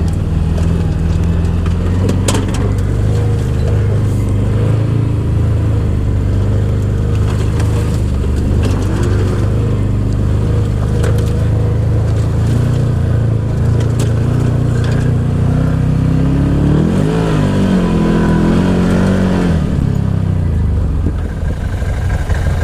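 Side-by-side UTV engine running steadily while driving a rough trail, the engine speed swinging up and down a few times near the end.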